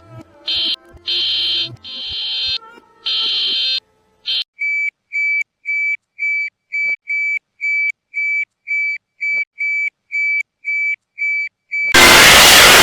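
Emergency-alert alarm tones played in reverse: a few harsh, buzzing tone bursts, then a steady run of short high beeps, about two a second. About twelve seconds in, a loud burst of static hiss cuts in suddenly.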